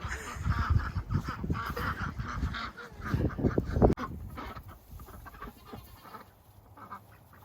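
Domestic ducks quacking and honking over heavy low rustling noise. About four seconds in there is a sharp click, after which everything is quieter.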